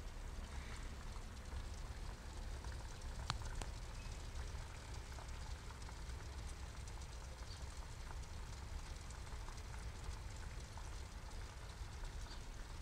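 A thin stream of water pouring from a small tube and splashing onto a pond's surface, a steady patter, with one sharp click about three seconds in.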